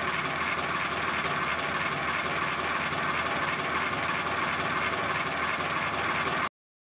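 Milling machine running steadily, a continuous mechanical hum with a thin high whine; it starts and cuts off abruptly.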